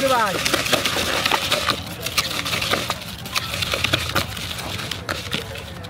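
Dry puffed rice (muri) mixed with spices being stirred and tossed with a spoon in a plastic bowl: a dense, irregular run of rattling and rustling clicks.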